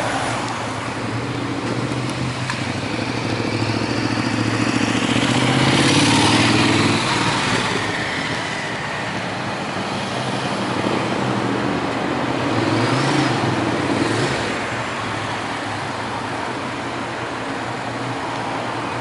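Road traffic passing: steady vehicle noise, with one vehicle passing close about six seconds in and another about thirteen seconds in.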